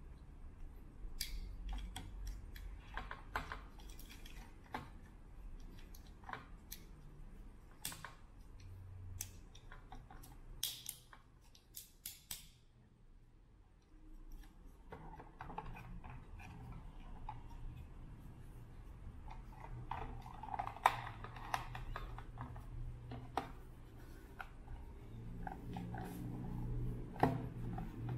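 Irregular small clicks and scrapes as AA batteries are pressed into a plastic battery holder against its metal spring contacts, then as the small plastic radio case is handled. There is a brief lull about halfway through.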